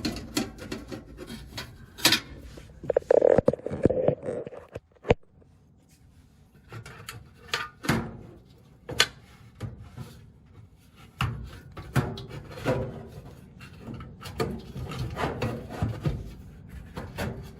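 Parts of a dryer being handled and fitted back together by hand: scattered clicks and knocks with rubbing and scraping, and a short squeaky scrape a few seconds in.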